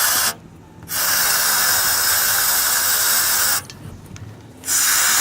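Canned compressed air blowing in long bursts through a tube into a sunroof drain hole to clear the clogged drain. There are three bursts: one ends just after the start, a long one runs from about one second in to past the middle, and another starts near the end, each cutting off sharply.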